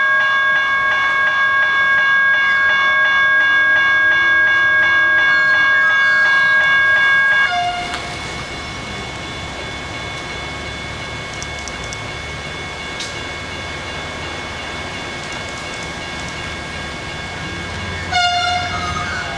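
General Signals Type 1 electronic level-crossing bells ringing, a fast repeating electronic chime, while the boom gates lower. About seven and a half seconds in the ringing drops to a noticeably quieter level and keeps going over a low rumble, with a brief louder sound near the end.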